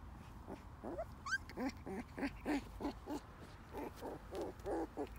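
Two six-week-old Rottweiler–Bullmastiff puppies play-fighting, giving many short yips and play-growls, two to three a second. One rising squeal comes about a second in.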